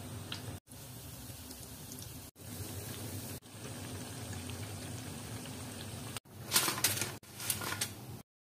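Batter fritters (baray) sizzling and bubbling steadily in a pan of hot oil, cutting off abruptly a few times. Near the end, two short, louder bursts of sizzling.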